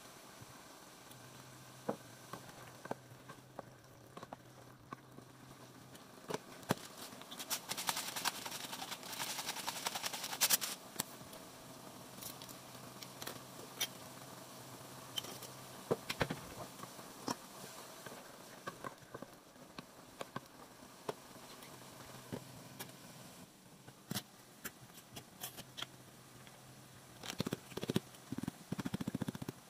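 Kitchen handling sounds of bottles and jars as ingredients go into a pot of stewing meat: scattered clicks and taps over a steady low hum, with a few seconds of denser rustling noise about eight seconds in. Near the end, liquid glugs out of a bottle into the pot.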